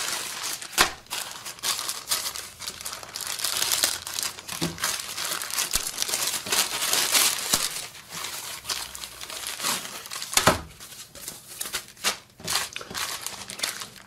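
Plastic mailer bag and foam packing wrap crinkling and rustling as a parcel is unwrapped by hand, with sharp crackles throughout.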